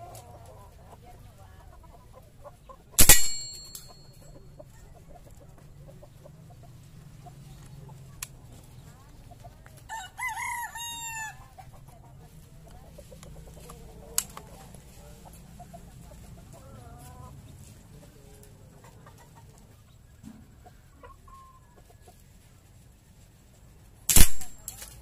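Two sharp shots from a Philippine-made footpump airgun, about three seconds in and again near the end. Between them, a rooster crows once.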